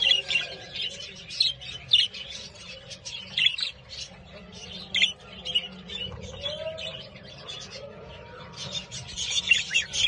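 Budgerigars chirping and chattering: a continuous run of short, sharp chirps, coming in louder clusters now and then, the busiest near the end.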